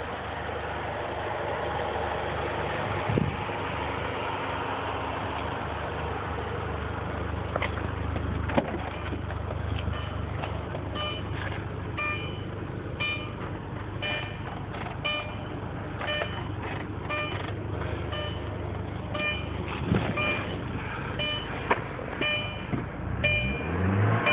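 Audi TT engine idling steadily, with the car's electronic warning chime beeping over and over from about ten seconds in. Near the end the engine is revved briefly, rising and falling.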